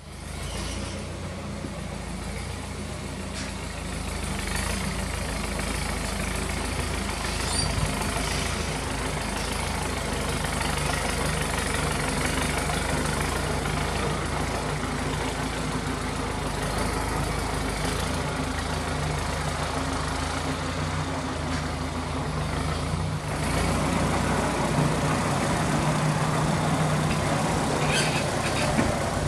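The diesel engine of a 1997 Ford New Holland LX865 skid steer loader running steadily, getting louder about 23 seconds in as it is throttled up.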